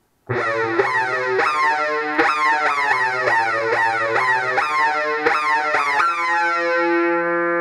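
Homemade STM32 F405 synthesizer with a PCM5102 DAC playing a hard-sync lead: one oscillator syncs the other, and a pitch modulation that follows the filter envelope gives each note a sweeping whirr of harmonics. A run of about a dozen notes, the last one held near the end.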